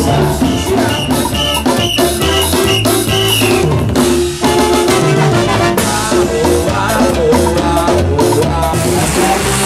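Loud up-tempo Latin dance music with a busy drum kit and percussion.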